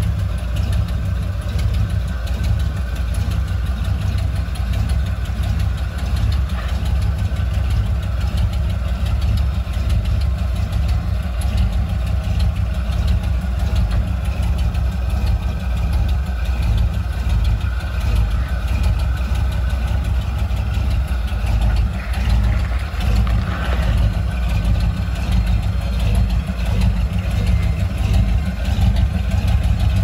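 Ford Bronco's engine running steadily at low revs.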